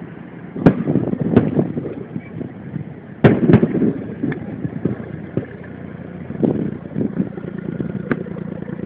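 Aerial firework shells bursting in a series of booms, about seven in all, with the loudest a little over three seconds in and a rumble of echoes and crackle between them. Recorded on a mobile phone, so the sound is dull with no high end.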